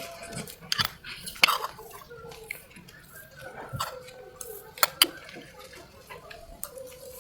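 Cutlery and dishes clinking: a few sharp knocks and clinks, the loudest about one and a half seconds in and a pair near five seconds.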